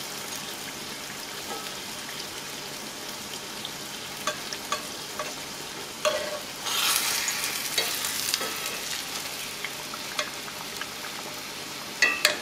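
A puffy taco shell of fresh corn masa deep-frying in hot oil in a cast-iron skillet: a steady sizzle that swells louder for a second or so in the middle. A few light clicks come from the metal spatula and slotted spoon against the pan and shell.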